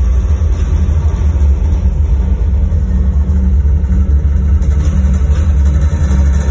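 Show music played loud over a sound system, here a steady, deep bass drone with little higher sound above it.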